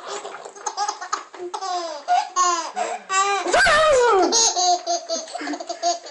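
A baby laughing hard in repeated high-pitched bursts, with a louder, longer squeal that falls in pitch about three and a half seconds in.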